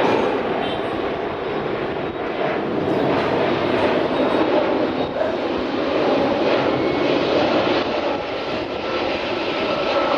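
Jet engines of a Boeing 767-200ER airliner during its landing, a loud, steady rushing roar with a faint whine above it.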